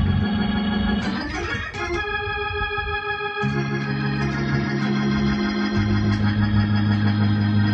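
Electronic keyboard played with an organ sound in gospel style: held chords over a bass line, with a quick rising run about a second in, after which the bass drops out for a couple of seconds and comes back under a new chord.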